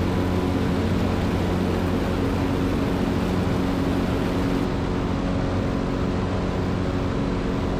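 Zenith CH 750 Cruzer's engine and propeller running steadily at full climb power just after takeoff, one even drone with a constant pitch, heard from inside the cockpit.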